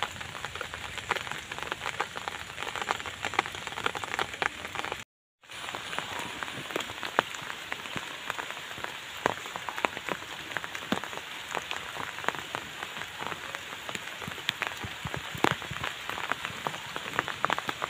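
Steady rain falling, a dense patter of many sharp drops; it breaks off completely for about half a second around five seconds in.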